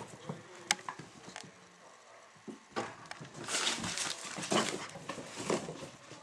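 Chinese crested puppies playing: a few small clicks at first, then a busier run of scuffling and scrabbling from about three seconds in.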